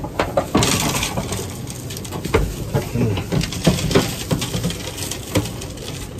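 Jacket fabric rubbing over the phone's microphone, with a string of small, sharp clicks and knocks throughout.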